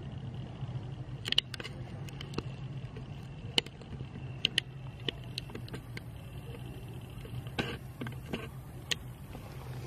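Macaque biting and chewing a ripe mango: a scatter of sharp, wet clicks and smacks at irregular intervals, over a steady low hum.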